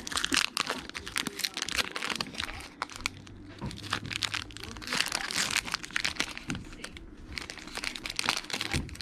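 Foil trading-card pack wrapper crinkling and crackling in irregular bursts as it is handled and torn open by hand.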